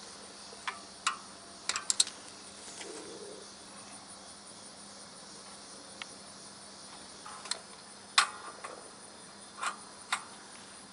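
Scattered short metal clicks and clinks of a long socket and extension on the adjusting bolt of a truck's quick-adjust clutch, worked through the clutch housing's inspection opening, over a faint steady hiss. A quick run of clicks comes about two seconds in, and the sharpest knock about eight seconds in.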